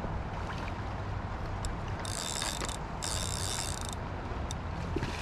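Spinning reel's drag buzzing in two bursts, the first under a second and the second about a second long, as a hooked salmon pulls line off. Underneath is a steady low rumble.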